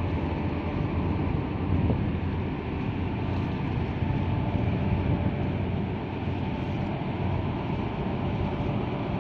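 Steady low engine rumble mixed with wind noise on the microphone.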